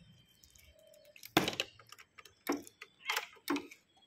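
A handful of sharp clicks and knocks, about five over two seconds, from parts of a parked motorcycle being handled and tapped by small hands.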